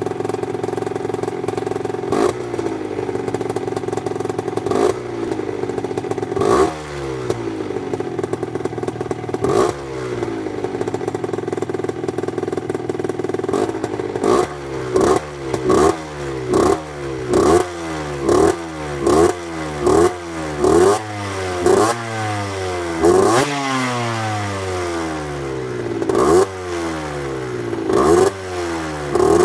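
Derbi Senda 50's two-stroke engine through a Yasuni Cross exhaust, idling with a few single throttle blips, then from about halfway on blipped over and over, roughly one rev a second, each dropping back toward idle.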